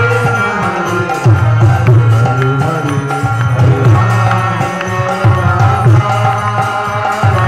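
Loud devotional music with hand drumming over a heavy low bass line that drops out briefly a few times.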